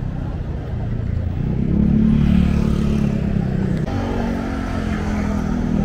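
Street traffic: a motor vehicle engine running close by, over a steady traffic rumble. It grows louder about a second and a half in, then holds steady.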